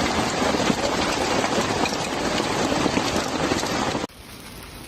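Hail and rain pelting hard surfaces in a dense, steady clatter of small impacts. About four seconds in it cuts off sharply to a much quieter patter.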